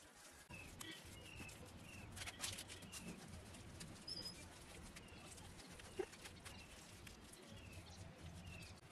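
Faint small-bird chirps, short falling notes about once a second, over soft scrapes and light knocks of bare hands working a wet mud-and-straw plaster onto bricks. The loudest knock comes about six seconds in.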